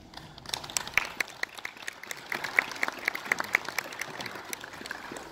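A small audience applauding, the clapping starting about half a second in.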